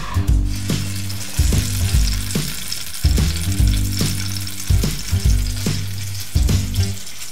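Halved cherry tomatoes frying in hot oil in a frying pan, a steady sizzle, over background music with a repeating bass beat.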